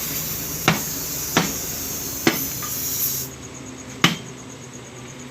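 Four sharp metal-on-metal hammer blows on a truck wheel rim during tyre fitting, the last the loudest. A steady hiss runs under the first blows and cuts off suddenly about three seconds in.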